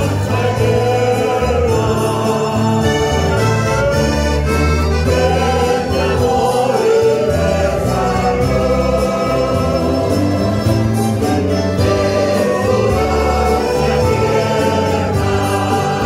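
Church worship group performing a Spanish-language hymn: several voices singing together over strummed acoustic guitars, keyboard and accordion, with a steady bass line.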